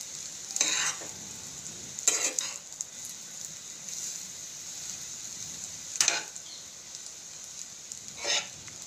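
Egg fried rice sizzling in a hot pan while a spatula stirs and tosses it: a steady sizzle with four louder scrapes of the spatula through the rice, about a second in, two seconds in, six seconds in and near the end.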